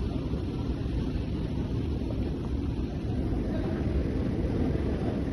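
Steady low rumble of a vehicle in motion, with no distinct engine note or sudden sounds.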